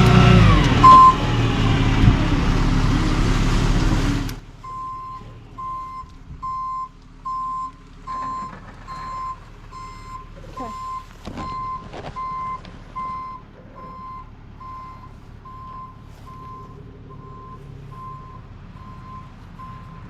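A truck engine runs loudly at first and drops away about four seconds in. A truck's reversing alarm then beeps steadily at about three beeps every two seconds over the lower engine rumble.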